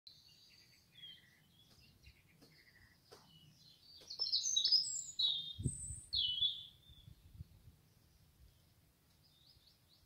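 Common nightingale singing: varied short phrases of high notes, building to a loud run of fast, rich notes from about four to seven seconds in, then pausing. Probably a male singing to attract a mate.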